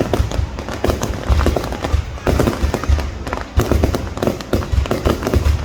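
Fireworks going off in a dense, unbroken barrage of rapid bangs and crackles with deep booms.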